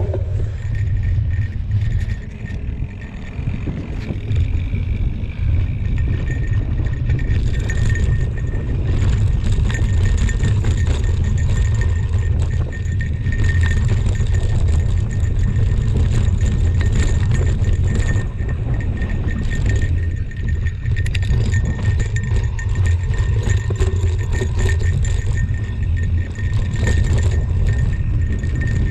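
Wind rumbling over a mountain biker's GoPro microphone during a fast singletrack descent, with the rattle and clatter of the bike and tyres over rough dirt.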